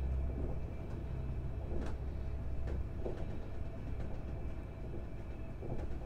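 Passenger train running, heard from on board: a steady low rumble that eases about three seconds in, with a few short sharp clicks and knocks from the carriage.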